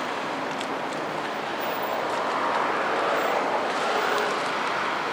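Steady outdoor background noise by the river, an even hiss with no distinct event standing out.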